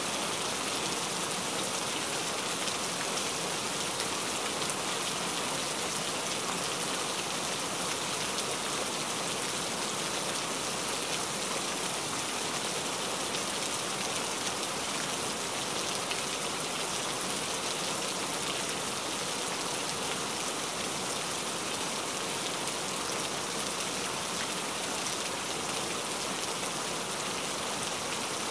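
Steady rain falling, an even hiss of many drops that holds at one level throughout.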